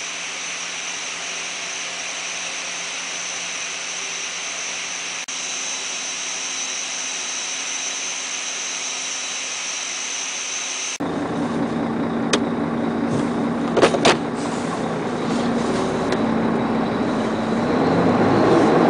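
Steady rushing hiss with a faint high whine as cream is pumped out of a tanker truck through a stainless line with a sight glass. About eleven seconds in it changes abruptly to the lower steady rumble of the truck's engine running, with a couple of short sharp hisses, and it swells louder near the end.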